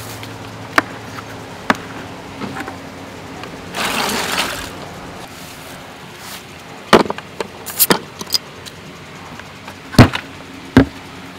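Hard-sided cooler being opened and handled: clicks and knocks of its lid and rubber T-latches, a short rattling rustle about four seconds in, a run of clatters and clinks around seven to eight seconds, and two sharp knocks near the end as a released latch swings against the cooler body.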